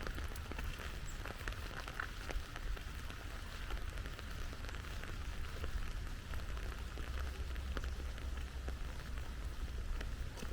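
Steady rain falling, with many separate drops ticking and pattering close by over an even hiss, and a low steady rumble underneath.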